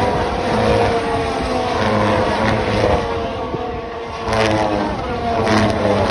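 A field of Formula 1 cars passing one after another at speed, their high engine notes falling in pitch as each one goes by.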